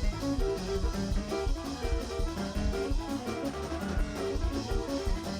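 Live church band music led by guitar, with bass and a steady beat.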